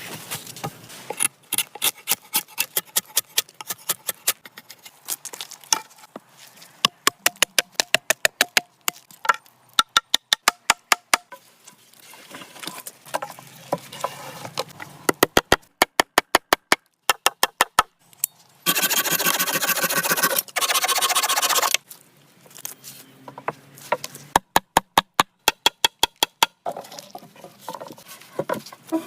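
Hand-tool work sounds: runs of sharp knocks and clicks, with about three seconds of harsh rasping noise a little past two-thirds of the way through.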